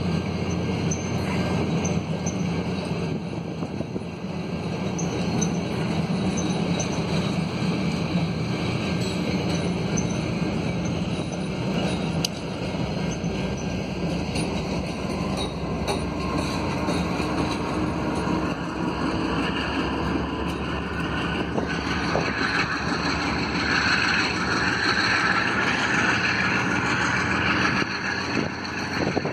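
Via Rail LRC passenger cars rolling across a steel bridge: a steady rumble of wheels on rail with a few sharp clicks at the rail joints. Near the end the noise grows louder and higher-pitched as the train's F40 diesel locomotive comes by.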